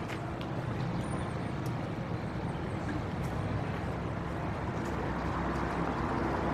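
City street traffic: the steady low rumble of passing vehicles, with a few faint clicks and a slight swell near the end.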